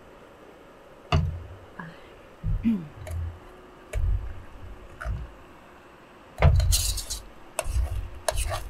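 A cooking utensil knocking and scraping in a camping frying pan: a handful of separate knocks with dull thumps, then a longer, harsher scrape about six and a half seconds in, as food sticks to the bottom of the pan.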